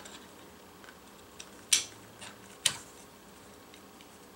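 Two sharp metallic clicks about a second apart, with fainter ticks between, as the two metal handle halves of a Microtech Combat Troodon automatic knife are pressed together over the spring assembly.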